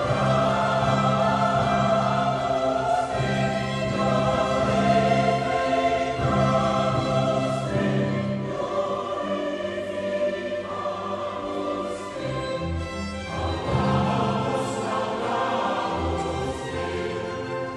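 Choir singing sacred classical music with orchestra, in sustained chords that move in phrases of a few seconds.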